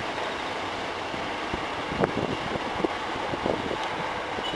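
Hankyu 7300-series electric train running away on the line after departure: a steady rumble with a few sharp wheel clacks.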